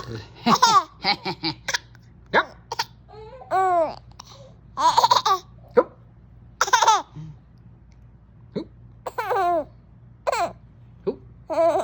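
Baby laughing and squealing in many short bursts, some breathy, each with a pitch that rises and falls.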